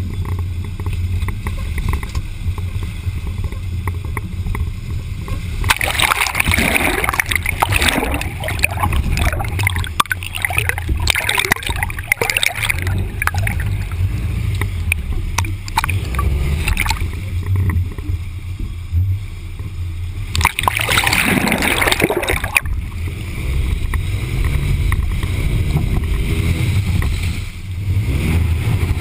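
Shallow stream water gurgling and splashing around a GoPro in its waterproof housing, held at the surface and dipped under. A muffled low rumble runs throughout, with louder splashing and gurgling about six seconds in and again about twenty seconds in.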